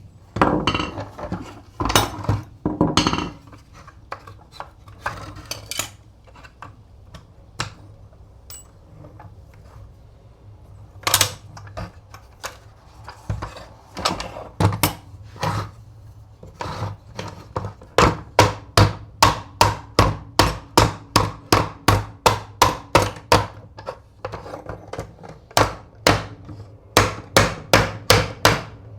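Hammer tapping while the antique coffee grinder is taken apart: a few scattered knocks and clunks at first, then a long run of quick, evenly spaced taps, about two or three a second, broken by a short pause near the end.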